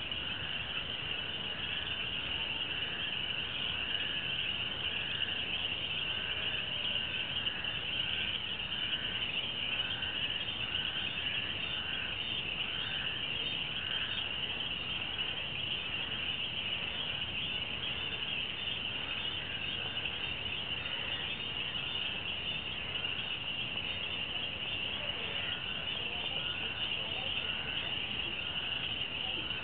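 Night chorus of insects and frogs: a steady high shrill, with a lower pulsing call repeating about once a second.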